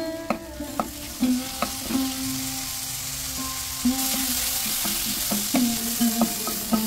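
Shallots, green chillies and fresh tomato sizzling in hot oil in a wok, stirred with a spatula that scrapes and clicks against the pan many times. The sizzle grows louder about four seconds in.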